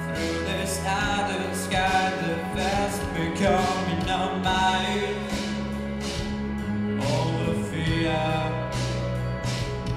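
A teenage boy singing a song into a handheld microphone over backing music with bass and a steady drum beat of about two strokes a second.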